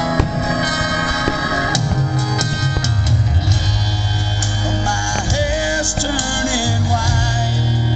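Rock song playing, with a singing voice over guitar, bass and drums; the sung line stands out from about five seconds in.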